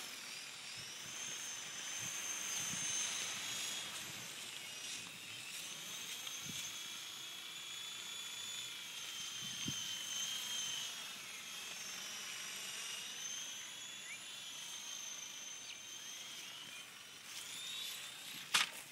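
Small E-sky coaxial RC helicopter in flight: the thin high whine of its electric motors and rotors, wavering in pitch as it is flown. The whine dies away near the end, followed by a sharp clack as the helicopter crashes into the ground.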